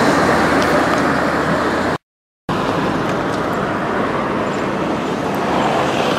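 Steady traffic and road noise, an even rushing hiss with no distinct events. The sound drops out completely for about half a second, about two seconds in.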